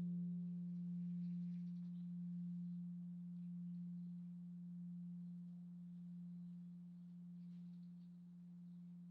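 Heungcheonsa's large bronze Korean temple bell (beomjong) ringing out after a strike: a low hum that slowly dies away, its sound gently swelling and fading in a slow pulse. The higher overtones fade out within the first couple of seconds.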